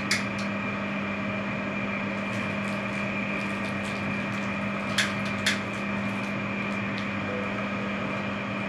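Steady hum of a running kitchen appliance, with a few light clicks: one right at the start and two close together about five seconds in.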